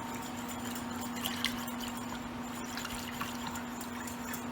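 A whisk stirring a thin lemon sauce in a saucepan, with soft liquid swishing and small scattered clicks against the pan, over a steady low hum.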